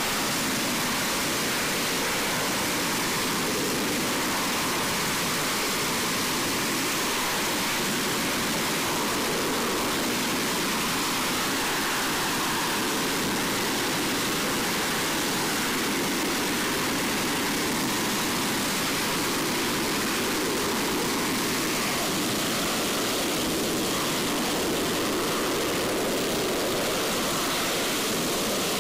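AV-8B Harrier II hovering, its Pegasus vectored-thrust turbofan giving a loud, steady rushing jet noise with no distinct tones.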